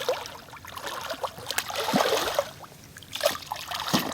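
Water splashing and sloshing in irregular surges, from a hooked flathead catfish thrashing at the surface beside the boat while being fought.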